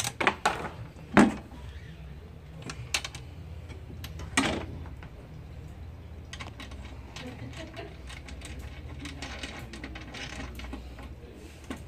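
Steel seat-frame bracket and bolt hardware knocking and clicking against a plastic seat bottom while a golf cart back-seat frame is fitted by hand. A few sharp knocks in the first seconds, the loudest about a second in and another about four seconds in, then lighter scattered clicks as a nut is turned.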